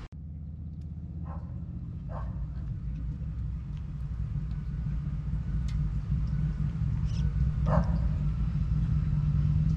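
A steady low motor hum that grows gradually louder, with three short calls over it, two close together in the first couple of seconds and one near the end.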